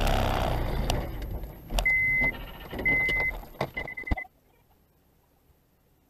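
Car audio on a dashcam during a crash ahead: a loud rush of road noise, then two short high electronic beeps about a second apart and a few sharp clicks. The sound cuts to near silence about four seconds in.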